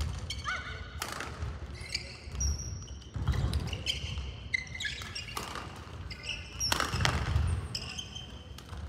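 Badminton rally on an indoor court: sharp racket strokes on the shuttlecock every second or two, shoes squeaking on the hall floor, and thudding footsteps, with some echo from the hall.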